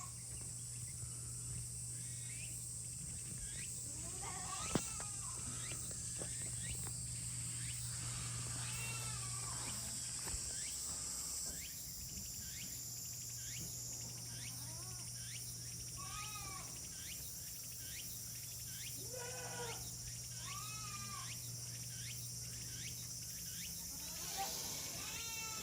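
Young goat kids bleating, short high wavering calls repeated every few seconds, over a steady high drone of insects.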